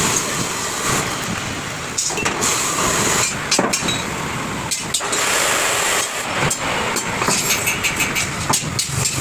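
Arc welding crackling on the steel frame of a pickup truck's open cargo body. From about two seconds in, steel channel sections clank and knock sharply as they are laid on the frame.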